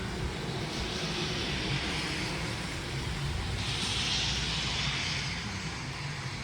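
Steady low rumble of road traffic, with one vehicle's tyre hiss swelling and fading as it passes about four seconds in.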